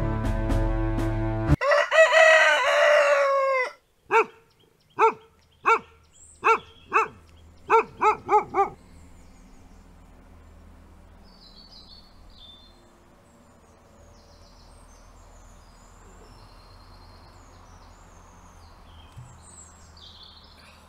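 Music stops, and a rooster crows once for about two seconds. About nine short clucks follow, coming quicker toward the end. After that there is only quiet outdoor ambience with faint distant birdsong.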